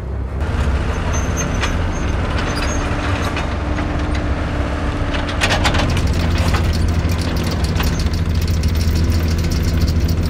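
Tank engine running with a steady low drone, over the clanking of its tracks, which grows densest about five to seven seconds in as the tank comes close.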